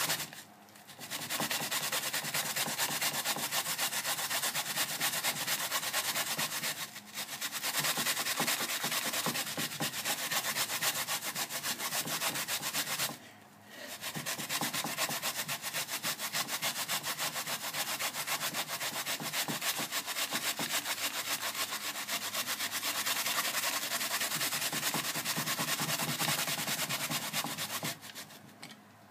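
Daikon radish being grated on a plastic grater: a continuous fast rasping of rapid back-and-forth strokes, stopping briefly a few times.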